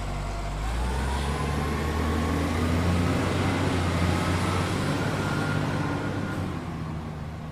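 Motor vehicle engine running, cutting in suddenly with a slight rise in pitch at first, then holding steady and fading toward the end.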